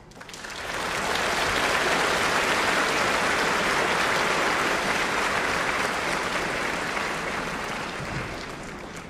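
Theatre audience applauding: dense clapping that swells in over the first second, holds steady, then fades away over the last couple of seconds.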